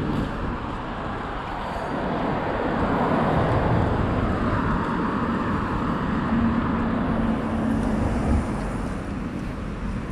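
Road traffic: cars passing on a multi-lane street, a steady wash of tyre and engine noise that swells as a vehicle goes by about three to five seconds in, with a steady engine hum a little later.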